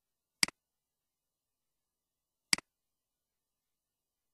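Two computer mouse clicks about two seconds apart, each a sharp click followed at once by a softer one.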